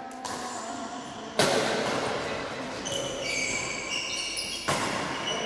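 Badminton rally: rackets striking the shuttlecock sharply, about a second and a half in and again near the end, with shoes squeaking on the tiled court in between.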